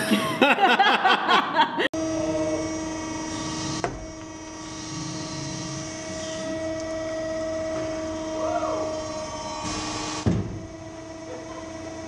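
A run of loud, sharp cracks for about two seconds as the rubber hockey puck breaks up between the closing dies of a 320-ton hydraulic crimping machine. Then a steady, even machine hum, broken by two short bursts of noise.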